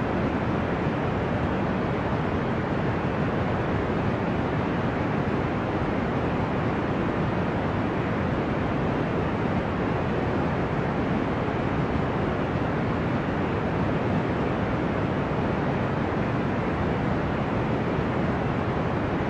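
Deep, ocean-like white noise for sleep: a steady, even rush weighted toward the low end, with no rise and fall of breaking waves.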